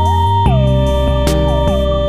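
Background music: a synthesizer lead that glides up and down between long held notes over a sustained bass, with a few light percussion hits.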